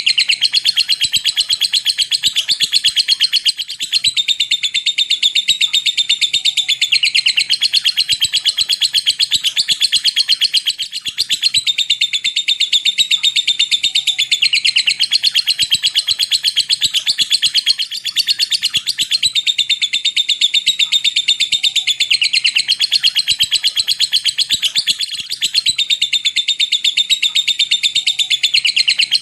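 Lovebird giving its long 'ngekek' chatter: a continuous, very rapid, high-pitched ticking trill, broken only by a few brief pauses.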